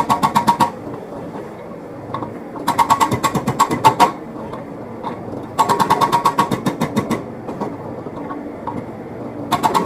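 Hydraulic breaker on a Komatsu PC78US excavator hammering in bursts of rapid blows, about ten a second, four bursts of one to one and a half seconds each, with the excavator's engine running steadily in between.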